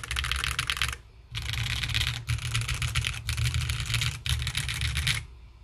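Fast typing on a QK80 mechanical keyboard with stock Kailh BCP linear switches on a muted FR4 plate, with thumping and plasticky topouts. A quick run of keystrokes, a short pause about a second in, then a longer unbroken run that stops shortly before the end.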